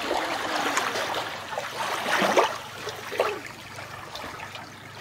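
Small waves lapping onto a sandy beach, washing in and splashing at the water's edge in a few surges, the strongest a little past two seconds in.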